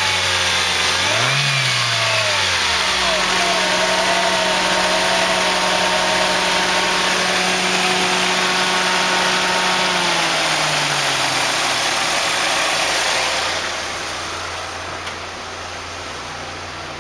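Mercedes-Benz engine (code 111978) on a test run: two quick throttle blips, then a steady idle. About ten seconds in, the engine note sinks and winds down over a couple of seconds as it is switched off, leaving a steady hiss.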